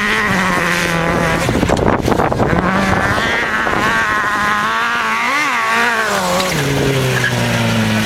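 Sand car's Suzuki GSX-R1000 inline-four motorcycle engine revving hard, its pitch rising and falling repeatedly as the car spins and slides through loose sand. The revs drop lower near the end.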